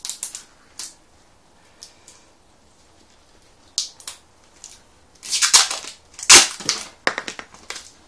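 Handling of a plastic bottle of tyre sealant: a few light clicks, then about two seconds of loud crackling and knocking about five seconds in.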